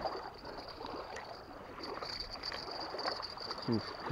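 Hooked carp splashing and thrashing in shallow water as it is reeled in and dragged to the bank, with an irregular sloshing of water.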